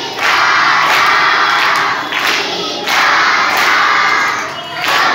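A crowd of children shouting and cheering together in a few long bursts of a second or two each.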